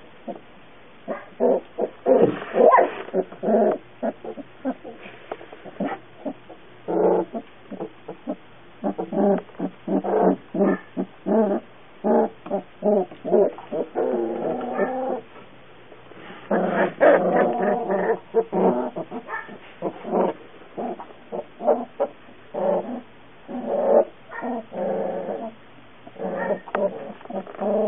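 Young puppies whining in many short, repeated cries, with a few longer drawn-out whines about halfway through.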